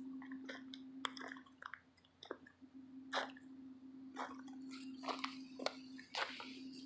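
Faint, irregular crunches and clicks of footsteps on crusted, icy snow, over a steady low hum.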